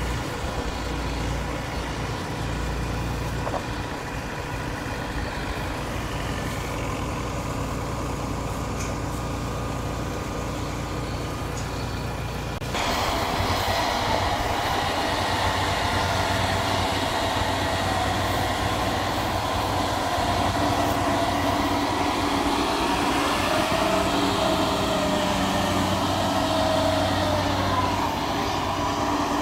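Kubota DC-70 rice combine harvester's diesel engine running steadily. After a cut about halfway through it is heard close up and louder.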